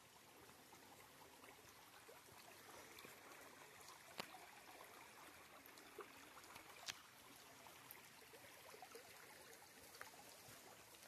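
Faint, steady running water of a stream trickling, with two brief light clicks.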